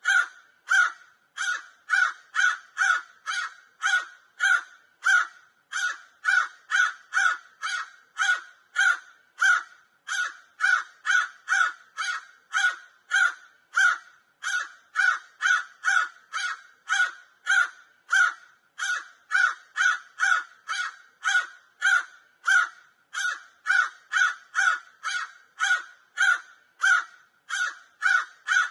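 Crow cawing over and over: short, harsh caws about two to three a second, with no let-up.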